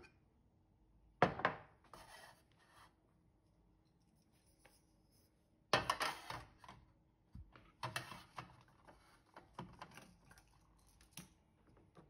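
Glass soap bottles and a plastic caddy handled and set down on a kitchen countertop: a sharp knock about a second in, then a cluster of knocks around six seconds and lighter clatter, taps and rubbing after it.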